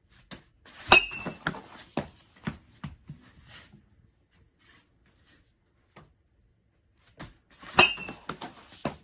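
Baseball bat hitting a ball off a batting tee twice, about seven seconds apart: each a sharp crack with a brief ringing ping, followed by several smaller knocks as the ball and tee rattle.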